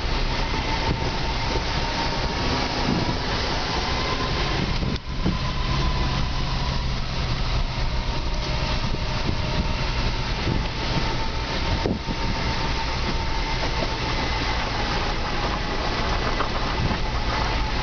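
A vehicle's engine running and its tyres on a gravel track, heard from inside the cab while driving: a steady, even rumble and road noise.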